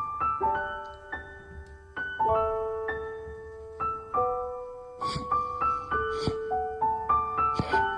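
Background piano music: struck chords and melody notes that ring and fade, changing every second or so.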